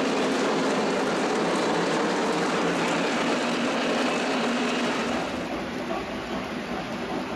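O gauge model trains rolling along three-rail track: a steady rattling rumble of wheels on rails, which turns quieter about five seconds in.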